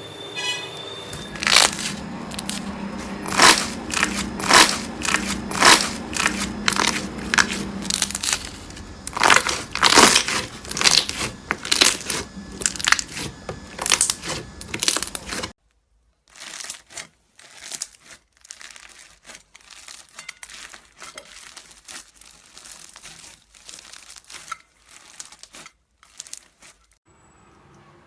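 Slime being pressed and squeezed, giving a dense string of sharp crackles and pops. About halfway through it cuts to a quieter clip of finer crackling.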